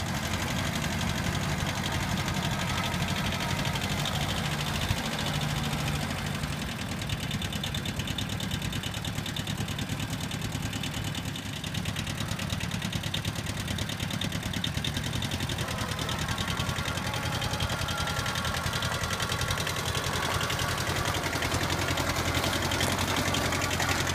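Kubota B6000 compact tractor's small two-cylinder diesel engine running steadily as the tractor drives, its pitch rising near the end.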